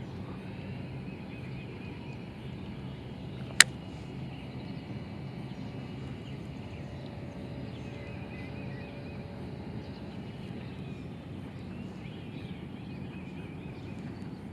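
Outdoor ambience: a steady low hum with faint high chirping calls, and a single sharp click a little over three seconds in.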